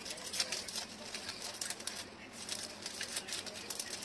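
Florist's wrapping paper crinkling and rustling in irregular crackles as hands fold and gather it around a bouquet.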